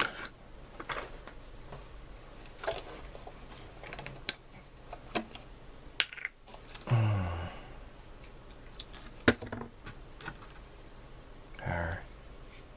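Scattered small clicks and taps of tools and model parts being handled on a hobby work desk, a few sharper ticks among them.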